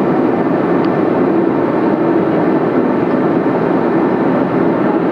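Boeing 787-9 airliner cabin noise in cruise flight: a deep, even rush with a faint steady hum.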